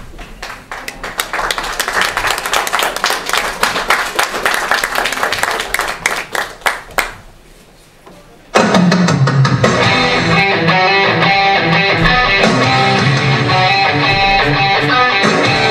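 Audience applause, a dense patter of clapping that fades away, then a short hush. About halfway through, loud rock music with electric guitar starts suddenly and plays on steadily as the dance accompaniment.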